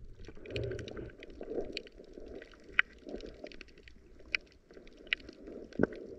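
Underwater ambience picked up by a submerged camera: a muffled low rumble of moving water with many scattered sharp clicks and crackles.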